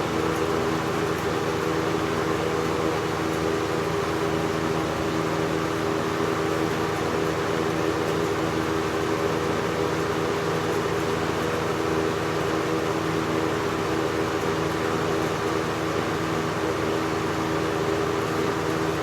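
1988 Lakewood 20-inch box fan running steadily: an even rush of air over a constant motor hum.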